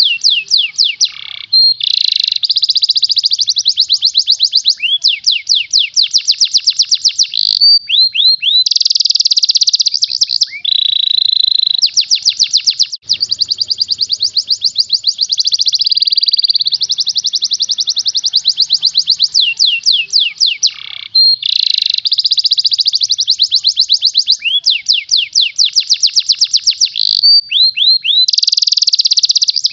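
Domestic canary singing a fast, near-continuous song: high-pitched trills of rapidly repeated notes, one phrase running into the next, with a few short breaks.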